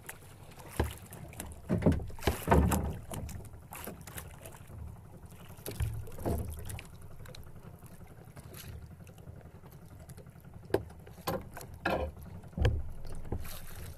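Sea water lapping and slapping against a small outrigger boat's hull in uneven splashes, over a low steady rumble of wind on the microphone.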